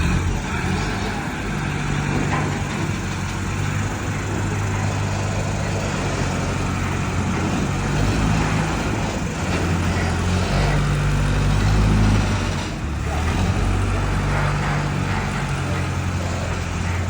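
A large vehicle engine running steadily under load, its low pitch shifting up and down every few seconds.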